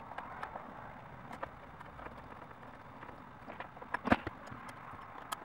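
Small metallic clicks and taps from a hex screwdriver, screws and a metal bracket rod being handled while a carbon-fibre monitor bracket is fitted to a radio-control transmitter, with a short cluster of sharper clicks about four seconds in.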